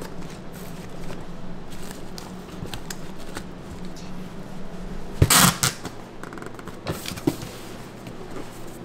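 Kitchen handling sounds: scattered light knocks and clinks of utensils and containers, with one louder clatter a little past halfway, over a steady low hum.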